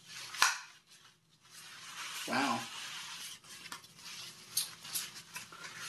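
Golf umbrella being closed: one sharp click from its shaft mechanism about half a second in, then the nylon canopy rustling as it is gathered and wrapped by hand, with a few small ticks.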